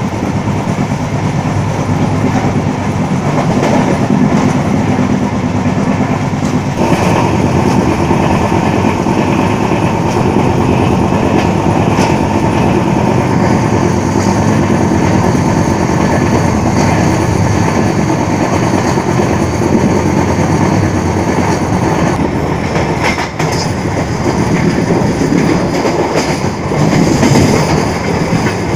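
An LHB passenger coach of the Cholan Express running at speed, heard from its open doorway: a steady rumble and rattle of the wheels on the rails, with rushing air. About halfway through, a thin high-pitched whine comes in and holds.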